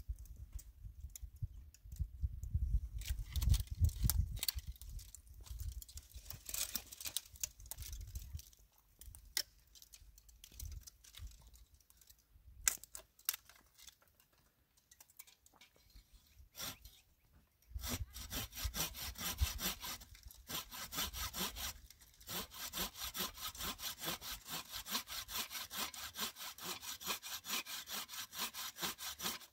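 Saw cutting through wood by hand, in steady back-and-forth strokes about two a second, starting a little past halfway through. Before that there are scattered knocks and a low rumble.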